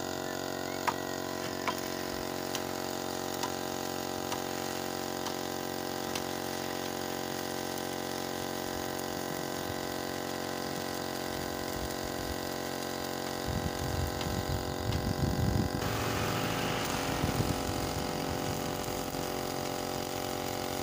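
Air compressor running with a steady hum while it pressurises a welded fuel tank for a leak test. A few faint clicks come early on, and from about two-thirds through, an irregular low rumbling and a hiss join in.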